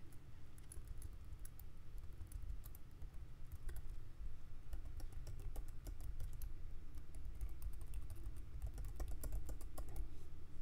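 Typing on a computer keyboard: keystrokes in irregular quick runs, densest near the end, over a low steady hum.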